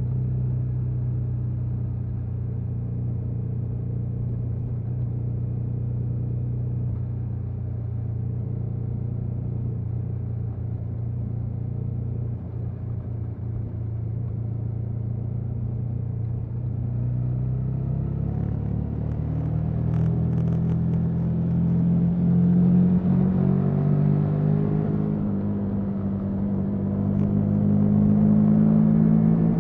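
The KTM 1290 Super Adventure S's 1301 cc V-twin running on its stock exhaust: a steady engine note for the first half, then engine speed climbing steadily and getting louder over the last ten seconds, with a sudden drop in revs just before the end.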